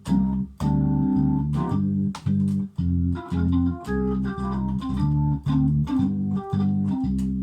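Crumar Mojo Classic drawbar organ played through a Leslie 2103mk2 rotating speaker: short, rhythmic chords about two a second, each starting with a click. A higher melody line joins in from about halfway.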